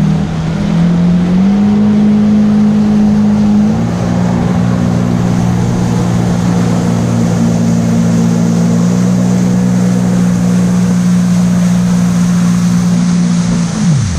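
Yamaha personal watercraft (jet ski) engine under throttle, its pitch climbing in steps over the first few seconds as it speeds up, then holding steady at speed. Near the end the pitch drops sharply as the throttle comes off.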